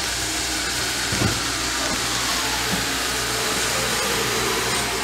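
Oxy-acetylene brazing torch flame running with a steady rushing hiss, with a couple of small knocks along the way.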